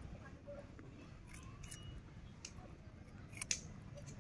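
A rabbit biting and chewing a crisp white radish: irregular, sharp crunches as its teeth snip through the raw root, the loudest about three and a half seconds in.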